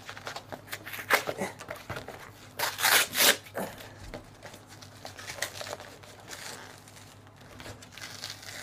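Brown paper mailer envelope being torn open by hand and crinkled: irregular rips and paper rustling, loudest in a burst about three seconds in.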